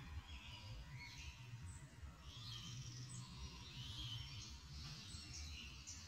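Faint outdoor ambience: small birds chirping now and then in short, quick calls, over a low rumble.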